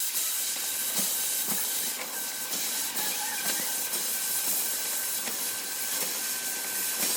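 Stick welding arc: a steady crackling hiss with small irregular pops.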